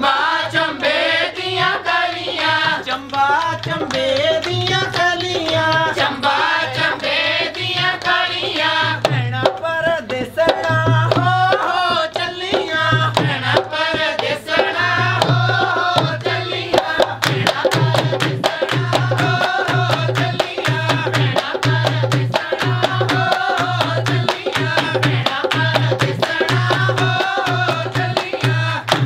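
Women singing a Punjabi folk song over a steady hand-drum beat, with quick rhythmic handclaps joining in a little past halfway.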